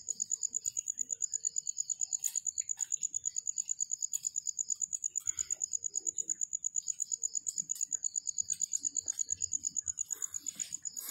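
A cricket chirping steadily: one high, even trill of fast, regular pulses that does not let up, with a fainter second chirping line just below it.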